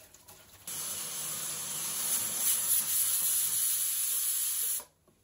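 A steady, even hiss that starts abruptly about a second in and cuts off abruptly near the end.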